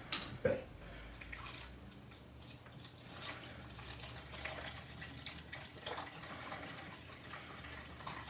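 Chicken broth being poured from a carton: faint, irregular trickling and dripping of liquid. There are two short knocks near the start.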